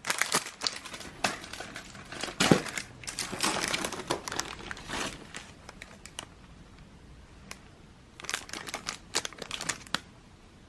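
Irregular crinkling and rustling of something being handled, in two bouts separated by a quiet pause with a single click.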